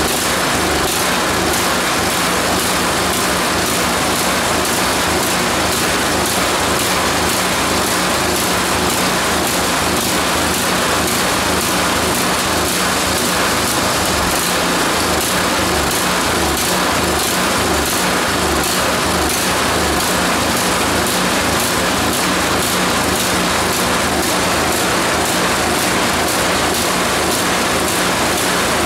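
Small single-cylinder engine running steadily with no muffler fitted, its cleaned carburetor refitted, while the choke is worked.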